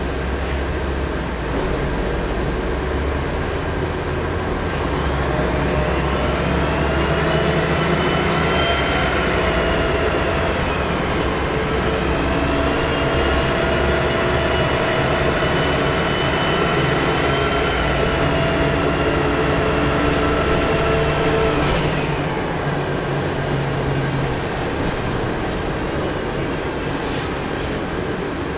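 Volvo B10M bus's turbocharged diesel engine pulling under power with a loud, high turbo whistle. The whistle rises in pitch, dips briefly about eleven seconds in, climbs again and holds, then falls away about twenty-two seconds in, over a steady engine drone and rumble.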